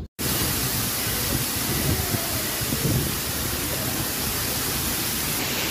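Steady rushing of running water, an even hiss spread across low and high pitches.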